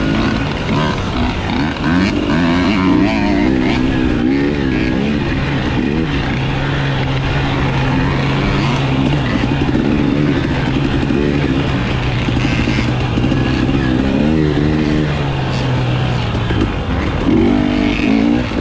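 Dirt bike engine running under load close up, its pitch rising and falling with the throttle, then held steady for several seconds in the middle before changing again near the end.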